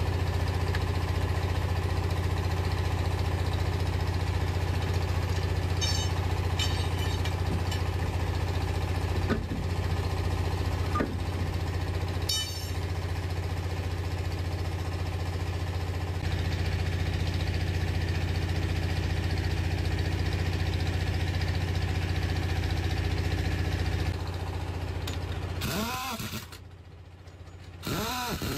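A steady engine hum running evenly, with a few short sharp clicks about six seconds in and again about twelve seconds in; near the end it drops away and brief gliding sounds are heard.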